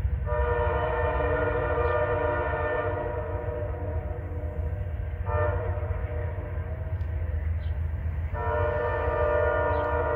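Diesel locomotive air horn blowing a long blast, a short one about five seconds in, and another long blast starting near the end, over the steady low rumble of the train. The pattern fits the long-long-short-long signal for a grade crossing.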